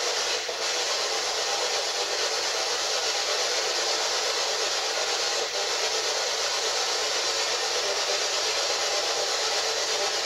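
P-SB11 spirit box sweeping through radio stations, giving a steady hiss of static.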